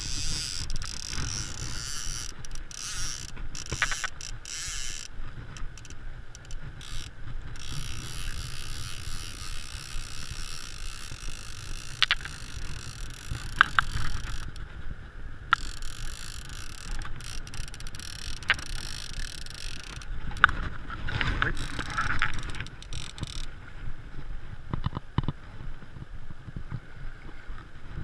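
Steady rush of river rapids and wind on the microphone, with intermittent clicking from a fly reel as line is wound in on a hooked fish, and a few sharp knocks.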